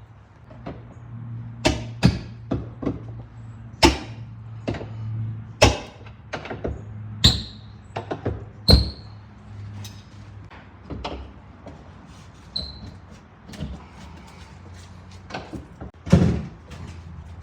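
Irregular clicks, knocks and a few short metallic rings from a door deadbolt being worked on and taken off the door. The loudest knock comes near the end.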